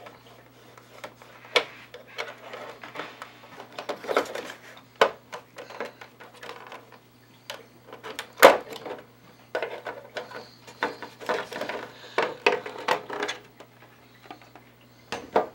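Plastic back cover of an LCD TV being prised off with a knife along its edge: a series of separate sharp clicks and snaps as the edge clips pop loose, with plastic knocking and rattling between them. The loudest snap comes a little past halfway, and a steady low hum runs underneath.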